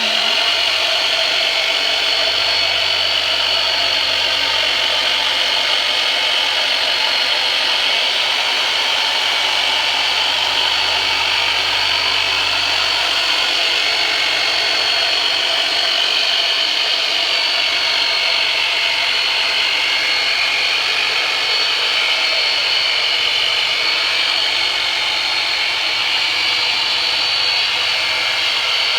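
A handheld electric massage tool switched on suddenly and running with a steady, loud motor buzz.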